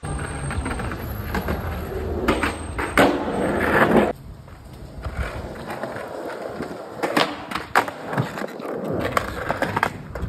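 Skateboard wheels rolling on concrete, with several sharp clacks of the board striking the ground. The sound cuts off abruptly about four seconds in, then the rolling and clacks start again.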